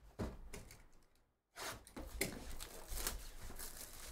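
Plastic shrink wrap being torn and crinkled off a sealed trading-card hobby box, a dense crackling that starts about a second and a half in.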